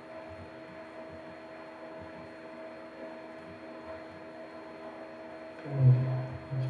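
Steady electrical mains hum, several fixed tones held under a faint hiss, with a short low vocal murmur near the end.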